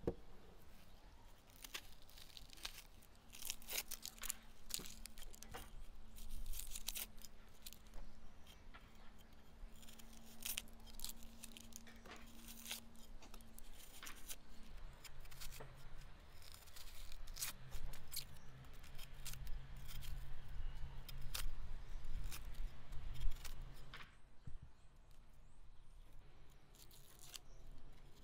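Kitchen knife peeling raw onions: dry, papery onion skin tearing and crackling as it is pulled away, with short scrapes and cuts of the blade, many quick strokes in a row.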